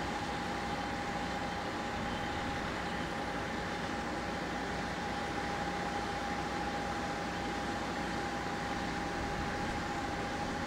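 Pair of DD51 diesel-hydraulic locomotives running coupled together, approaching at low speed at the head of a train of tank wagons: a steady engine and rail noise with a steady high tone held throughout.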